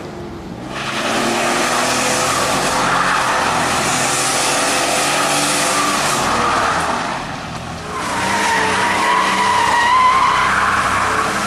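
Nissan 300ZX doing smoky donuts: the engine revs high while the spinning rear tyres screech on the asphalt. About eight seconds in, a steady, high tyre squeal takes over.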